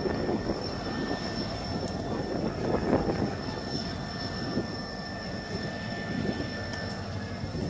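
Freight train of covered box wagons rolling slowly past as it departs: a steady rumble of wheels on rail, with faint high steady tones over it.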